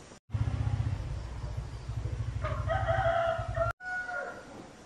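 A rooster crowing, starting about halfway through and cut off suddenly near the end, followed by a short second crow. Under it runs a loud, low, fast throb of a running motor.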